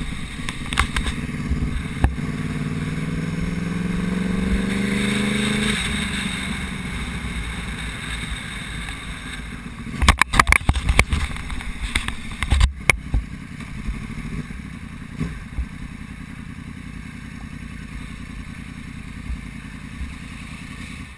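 Sportbike engine heard from the bike itself, rising in pitch under throttle for about six seconds, then dropping abruptly to a low, steady running note as it rolls slowly, with several sharp knocks about ten to thirteen seconds in.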